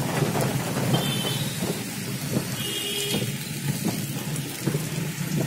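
Heavy rain falling on a car's roof and windows, many separate drops ticking against the body, heard inside the cabin over the car's steady low engine and road noise.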